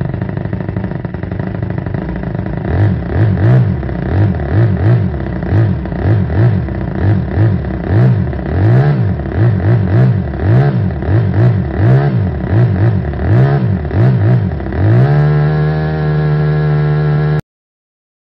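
Toyan FS-S100 single-cylinder four-stroke model engine running, then revved up and down over and over as the throttle is blipped, about two revs a second. Near the end it holds a steady higher speed, and the sound cuts off abruptly.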